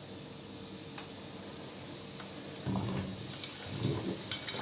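Melted butter sizzling in a hot frying pan with a steady hiss. About halfway through, and again a second later, chunks of peeled apple tumble from a plate into the pan with a dull clatter.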